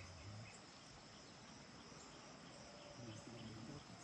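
Faint rainforest insect chorus: a steady, high-pitched drone of crickets and other insects, barely above near silence.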